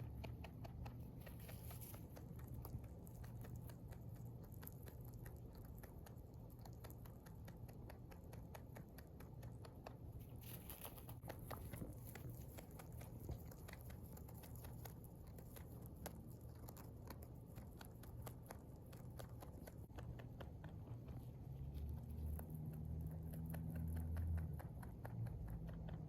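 Pet rabbit chewing hay: a fast, continuous run of small crunching clicks, fairly faint.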